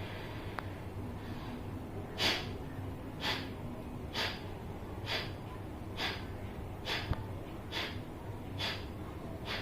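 Kapalbhati breathing: a man's short, forceful exhalations through the nose, about one a second in a slow, steady rhythm, beginning about two seconds in.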